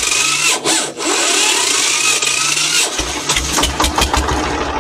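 Diesel engine being started for a test run after repair: a starter cranks with a rising whine, then the engine catches about three seconds in and runs with a rapid firing rhythm. It runs without the earlier noise, which came from the crankshaft having been driven inward so that its counterweight rubbed.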